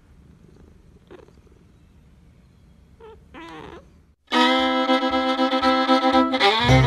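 A domestic cat making three soft, short meows or chirps. About four seconds in, fiddle music starts suddenly and is much louder than the cat.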